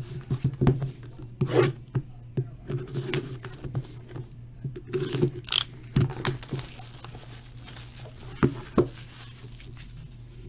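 Cardboard trading-card hobby boxes handled on a desk mat: irregular knocks, taps and scrapes as the boxes are picked up, shuffled and set down, with a brief crinkly rustle about five and a half seconds in.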